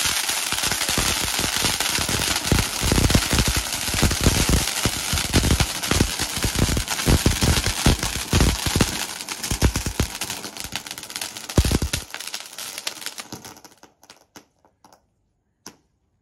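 Multi-colour Diwali firework going off: a dense crackling hiss laced with rapid pops and deep thuds, dying away about twelve seconds in and almost gone two seconds later.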